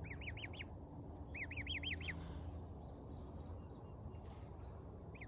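Gosling peeping: two quick runs of high, arched peeps, one at the start and another about a second and a half in.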